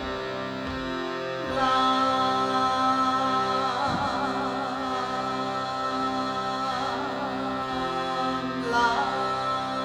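Meditative Indian-style music: a steady drone is held under a wavering melodic line, which swells a few times.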